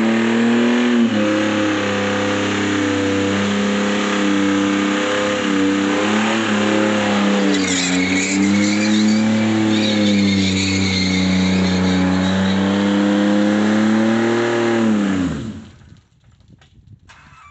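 Holden VR Commodore ute engine held at high revs through a burnout, the revs wavering over a hiss of spinning, squealing tyres. About fifteen seconds in, the revs fall away and the engine stops, in a car the title says has a rod knock.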